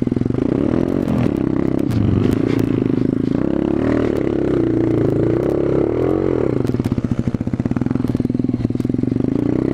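Small pit bike engine running under way, its pitch rising and falling with the throttle about halfway through, along with some clattering.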